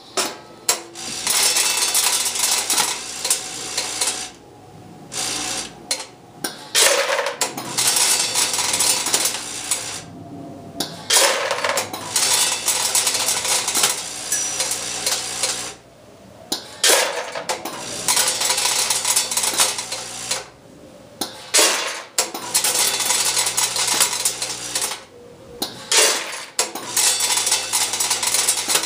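Logical Machines S-4 weigh-fill machine running repeated fill cycles, with hard treatment pellets clattering through it and down into a plastic bowl. The clatter comes in runs of a few seconds, with a short lull about every five seconds as each weighed dose is completed.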